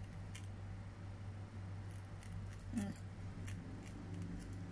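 Prairie dog nibbling a snack held in its paws: a few faint, sparse crunching clicks over a steady low hum, with a brief voiced sound about three seconds in.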